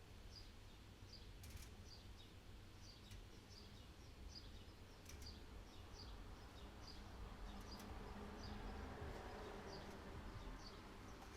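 Faint, evenly repeated high chirps, about two a second, from a small animal, over a low background rumble with a few faint clicks.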